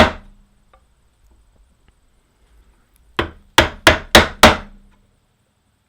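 Mallet striking a chisel, chopping a mortise in wood: one blow right at the start, then after a pause five quick blows about three seconds in, each stepping the chisel back and deeper.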